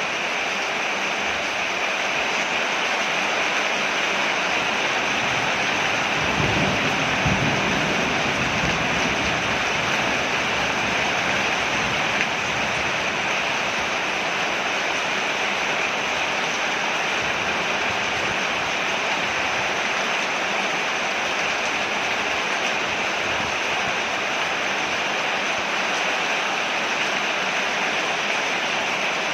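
Steady rain falling on a porch, an even hiss throughout. A low rumble swells about six seconds in and fades out by about ten seconds.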